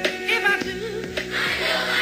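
Pop song with sung vocals over a steady drum beat.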